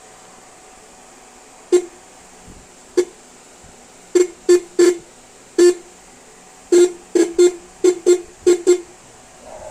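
Car horn tapped in about a dozen short honks, irregularly spaced and coming faster in the second half.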